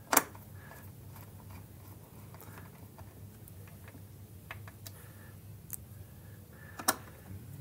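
Small screwdriver driving a screw into the bypass doser opening on a Gaggia Titanium espresso machine's top panel: scattered light clicks and ticks of the tip and screw, with a sharper click just after the start and another near the end.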